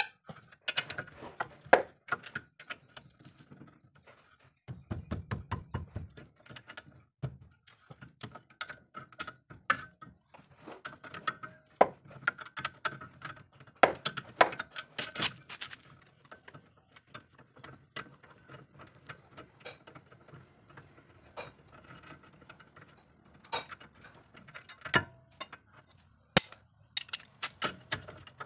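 Socket ratchet wrench clicking in short runs, with clinks of the steel socket and extension, as the bolts joining the McPherson strut to the steering knuckle are undone. A dense run of quick clicks comes about five seconds in.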